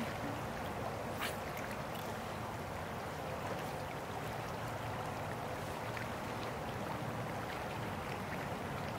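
Creek water flowing steadily past a wading angler's legs, a continuous rushing hiss, with a couple of faint clicks.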